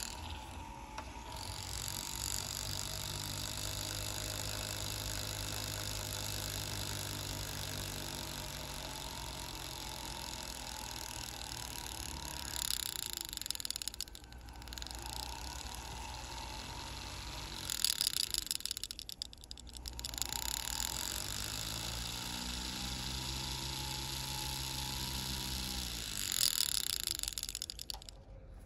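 Handheld rotary tool spinning a carbide burr with a steady whine while carving cavities into a hot-glue stick. Its pitch shifts as the motor speed changes, and three times a louder hissing grind comes as the burr bites into the glue.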